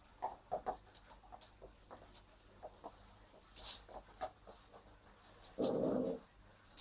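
A puppy playing tug with a toy, its claws ticking on a laminate floor, with a short growl near the end.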